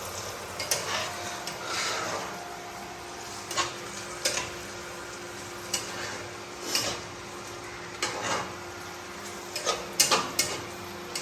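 Chopped onion, green chilli and garlic sizzling in mustard oil in a frying pan, stirred with a utensil that knocks and scrapes against the pan a dozen or so times at uneven intervals.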